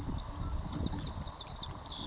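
A songbird singing a quick series of short, curling chirps, over a low rumble.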